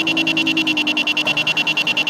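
Malfunctioning doorbell sounding in a rapid, even pulsing buzz, about fourteen high-pitched beeps a second, stuck on rather than ringing normally.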